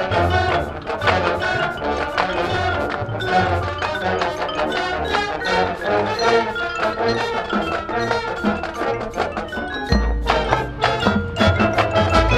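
Marching band playing, with the front ensemble's mallet percussion (marimba, glockenspiel, chimes) striking busy runs over sustained band chords, and a heavy low bass-drum hit about ten seconds in.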